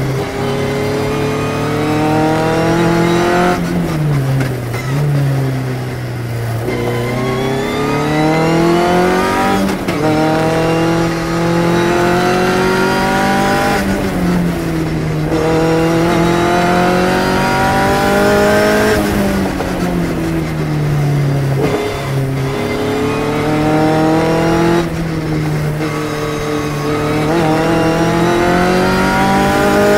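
Phantom S21 sports-racer engine heard from the car's own cockpit under race driving: the revs climb repeatedly and drop back each time at a gear change or under braking, about six times, over wind and road noise.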